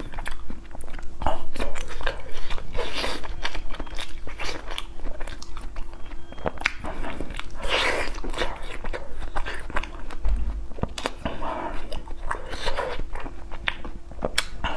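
Close-miked biting and chewing of a frozen pearl milk tea ice cream bar: repeated bites and wet chewing with many short mouth clicks and smacks.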